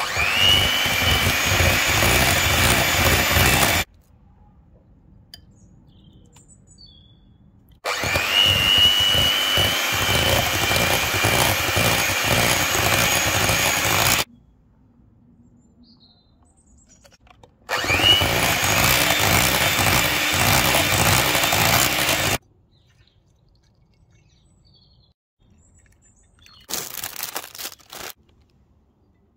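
White electric hand mixer beating mascarpone cream in a glass bowl, run in three separate stretches; each starts with a whine rising as the motor spins up, then runs steady. A short rustle near the end.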